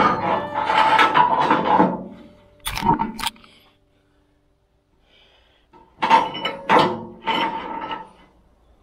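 Steel wire lift cable being pulled through a two-post hoist's sheet-steel post, scraping and clanking against the metal with a ringing rattle. There is a sharp clank about three seconds in, a short quiet, then more rattling.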